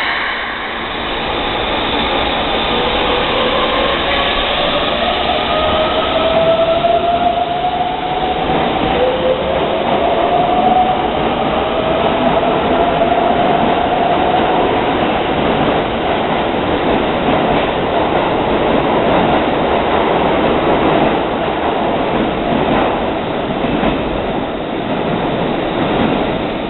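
Keikyu 600-series electric train pulling away, its traction motors whining upward in pitch in two stages as it accelerates, over the steady rumble of wheels on rail.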